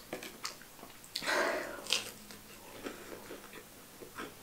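Biting into a crispy breaded fried chicken strip and chewing it. There is a louder crunching bite about a second in, then small wet mouth clicks as it is chewed.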